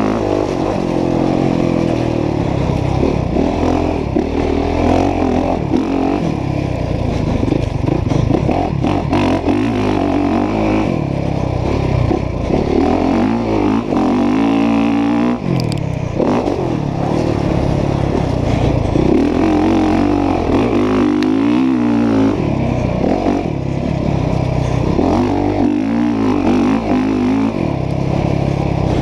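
Motocross dirt bike engine revving hard and backing off over and over as the bike is ridden around a muddy track, heard from on the bike. The engine note keeps rising and falling as the rider works the throttle and the gears.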